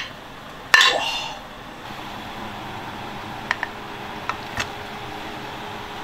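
Braising liquid simmering in a wok, a steady bubbling hiss with a few small pops. About a second in comes a single metallic clank with a short ring.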